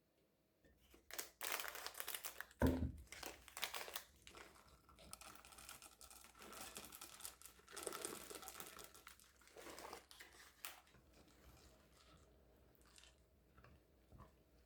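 Crinkling and rustling of something being handled, in quick irregular strokes for about ten seconds, with one sharp knock about two and a half seconds in, then a few faint ticks.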